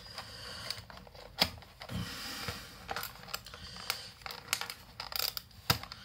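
Small charger box being handled and turned over in the hands: scattered light clicks, taps and rustling, with a couple of sharper clicks about a second and a half in and near the end.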